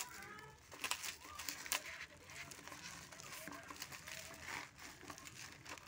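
Plastic courier mailer bag crinkling and rustling as it is pulled open and handled, with a few sharp crackles.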